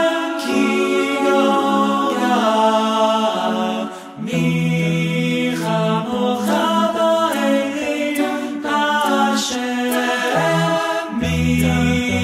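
Background music: an a cappella vocal group singing in harmony, with a short break about four seconds in.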